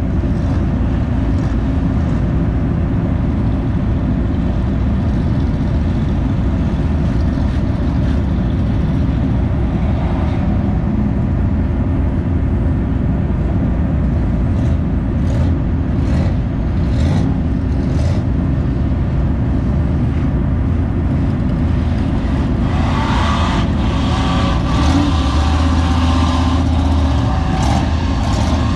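Recovery dozer's diesel engine running steadily with a deep, constant rumble. A few sharp metallic clanks come partway through as the recovery cable is handled. From about 22 seconds in, a mud truck's engine revs up over it.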